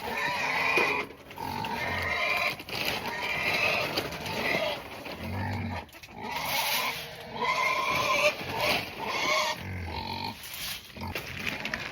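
Hungry livestock calling at feeding time, with many overlapping cries and calls one after another and a few deeper grunts.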